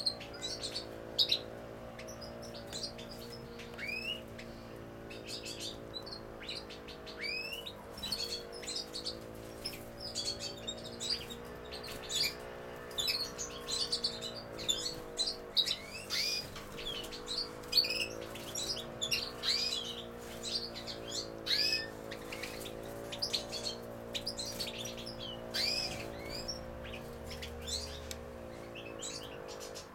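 European goldfinches calling and twittering: a busy run of short high chirps with repeated rising call notes. A steady low hum runs underneath.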